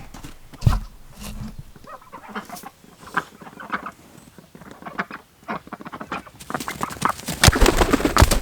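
Farm poultry calling amid handling noise: scattered knocks and rustling, a thump about a second in, and a dense run of clicks and rustling near the end.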